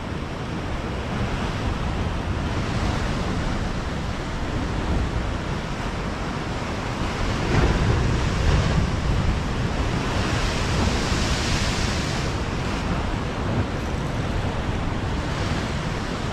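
Ocean surf surging and breaking against the rocks below, a steady wash of water noise that swells about halfway through and again a few seconds later, with wind rumbling on the microphone.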